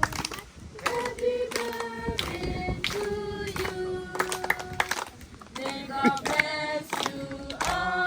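A group of voices singing together, women's and children's voices among them, in long held notes that change pitch from syllable to syllable.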